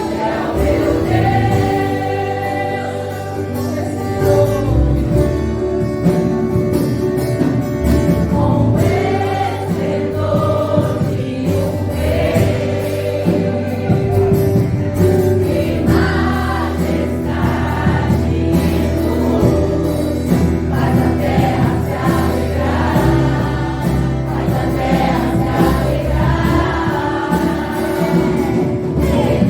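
Gospel worship song sung by a choir of voices over steady instrumental accompaniment with sustained bass notes.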